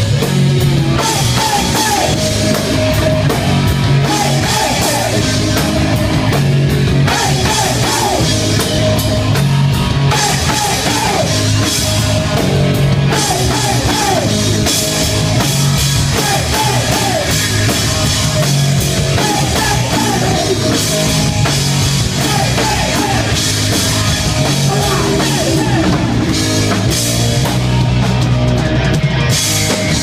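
Live hard rock band playing: distorted electric guitar, electric bass and a drum kit with cymbals, loud and continuous, with a wavering melodic line over the top.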